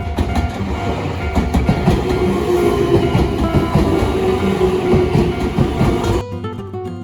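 A train passing close by, its wheels clattering rapidly over the track; the sound cuts off suddenly about six seconds in.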